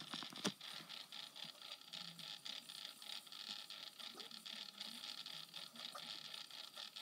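Faint whir of a tornado lamp's small motor, with a rapid fine ticking over a steady hiss; a sharper click about half a second in.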